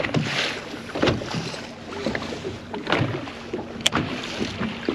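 Water slapping and splashing against the hull of a small boat in uneven surges, with one sharp click about four seconds in.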